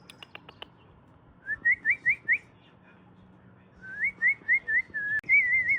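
Clear whistled notes: a quick run of four or five rising slurs, a second run a couple of seconds later, then a short wavering warble.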